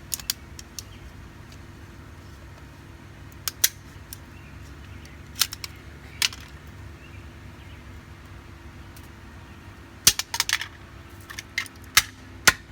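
Sharp knocks and clicks of hard plastic TV remote controls being struck and broken apart. They come one at a time at first, then in a quick flurry about ten seconds in and a few more near the end, over a steady low background hum.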